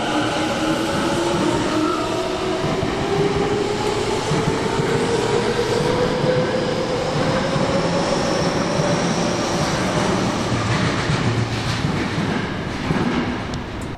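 Tobu electric commuter train accelerating, the whine of its traction motors rising steadily in pitch over a dense rumble of wheels on the rails. The sound drops away sharply at the end.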